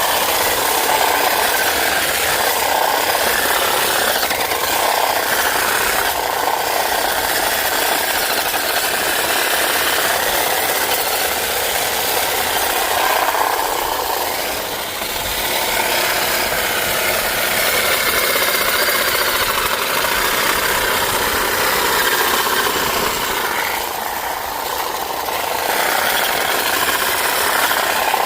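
Black & Decker Hedge Hog 20-inch electric hedge trimmer running and cutting through hedge branches, its motor and reciprocating blades sounding steadily, with brief dips in level about halfway through and again near the end.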